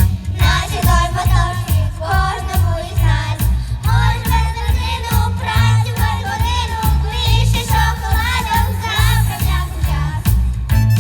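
Children's vocal group singing a pop song over music with a steady beat.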